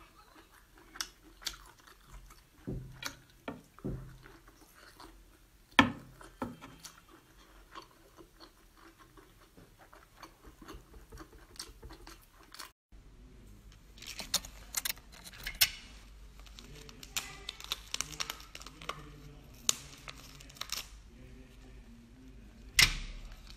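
Close-miked eating sounds: chewing of braised baby octopus, with scattered sharp clicks and smacks. After a brief drop-out about 13 seconds in, cooked lobster is pulled apart by hand, with crunching and tearing of shell and meat.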